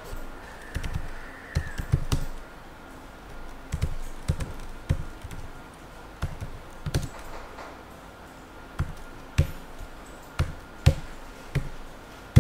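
Typing on a computer keyboard: irregular keystrokes, some singly and some in quick runs of two or three, with pauses of a second or more between them.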